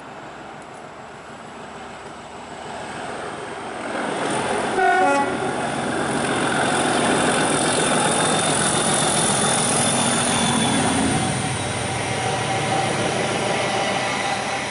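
Class 37 diesel locomotive 37510's English Electric V12 engine working hard at full power, its thrash growing louder as it approaches and passes, then easing. Its horn gives one short tone about five seconds in.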